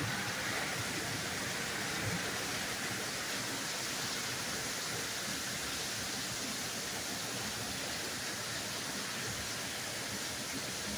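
Torrential rain pouring down steadily, a dense, even hiss.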